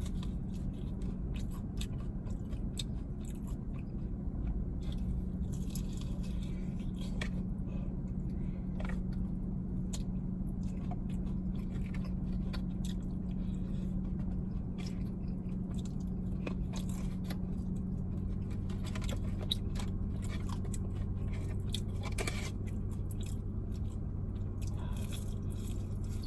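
Close-up chewing and crunching of crispy fried chicken, with scattered small crackles and mouth sounds, over a steady low hum.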